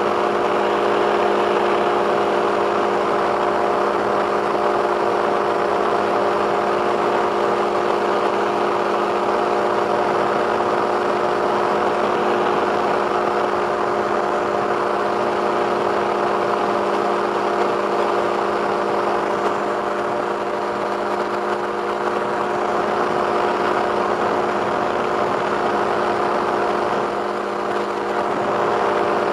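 Two-stroke engine of a flex-wing microlight trike running steadily in flight, a continuous drone, with the rush of air over the open pod. It eases off slightly for a moment near the end.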